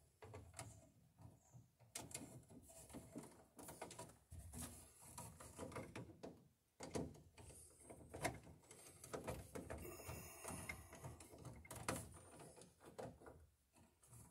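Faint, irregular clicks, scrapes and rustles of hands and a hand tool working a stiff 10-gauge wire into a breaker in a metal electrical panel.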